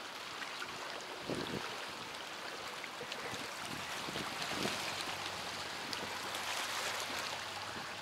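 Small waves lapping at a stony shoreline: a steady wash of water with soft splashes now and then.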